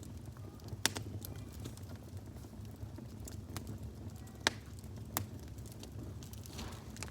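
Wood fire crackling: a steady low rumble with a few sharp, scattered pops, the loudest about four and a half seconds in.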